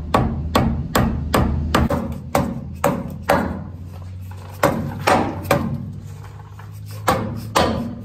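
Rubber mallet striking repeatedly to knock a new upper control arm into place on a truck's front suspension, about two blows a second in short runs with brief pauses between them.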